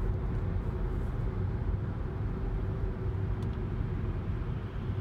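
Steady road and engine noise heard inside a moving car's cabin: a continuous low rumble with a faint steady hum.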